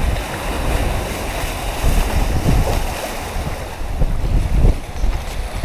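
Wind buffeting the microphone in uneven gusts over the steady rush of waves and water past a sailing catamaran under way.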